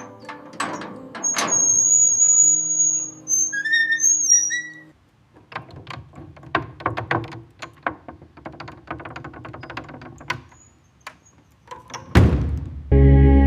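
A few thunks with high, held whistle-like tones, then a long run of light, irregular tapping and clicking. A whoosh sounds near the end, and ambient music comes in loudly just after it.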